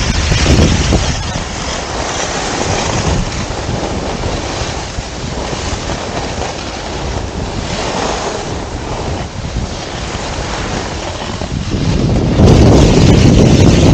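Wind rushing over the microphone of a camera moving at skiing speed, with the hiss and scrape of skis on packed snow rising and falling through the turns. The low wind buffeting gets much louder about twelve seconds in.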